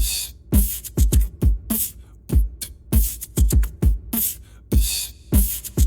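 Electronic backing music with a drum-machine beat: deep bass-drum hits that drop quickly in pitch, alternating with sharp snare and hi-hat hits.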